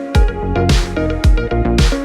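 Electronic music with a steady beat of deep kick drums and sharp noisy hits under sustained synth notes.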